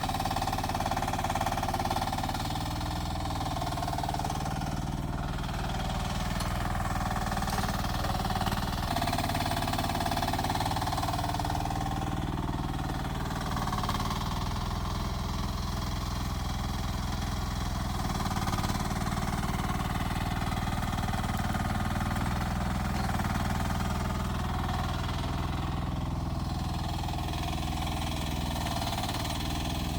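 Rippa R10 mini excavator's engine running steadily at a constant level, its note shifting slightly every few seconds as the machine works.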